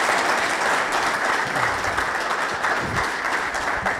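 Audience applauding, a steady wash of many hands clapping that begins to fade near the end.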